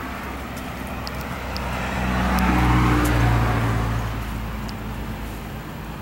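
A motor vehicle passing by on a road, its engine and tyre noise rising and then fading, loudest about three seconds in, over a steady outdoor background.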